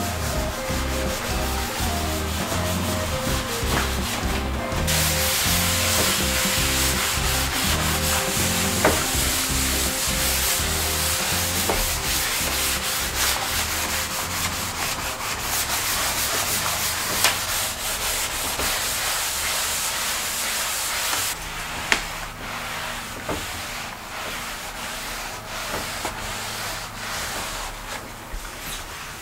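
Scrubbing of a glass shower screen: a steady rubbing hiss that starts about five seconds in and stops suddenly after about twenty seconds. Background music with a stepping bass line plays under it.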